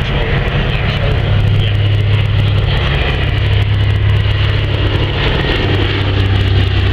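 Twin Pratt & Whitney R-1830 Twin Wasp radial engines and propellers of a PBY Catalina flying boat in flight, a loud, steady low drone.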